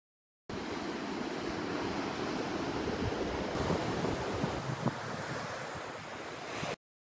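Ocean surf washing onto a beach, heard with wind buffeting the microphone in a few low thumps. It starts about half a second in and cuts off abruptly near the end.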